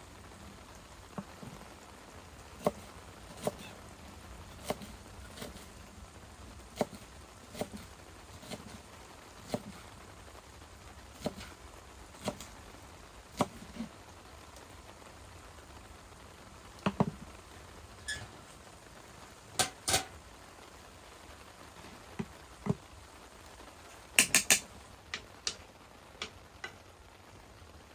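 Scattered light taps and clicks, irregular at roughly one a second, over a faint steady hiss. There are louder clusters of sharper clicks about seventeen and twenty seconds in, and a quick run of them near the end.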